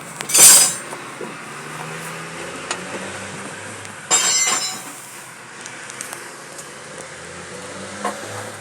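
Scraping noises as a man works himself under a truck: two short loud scrapes, one right at the start and one about four seconds in, over a faint low hum.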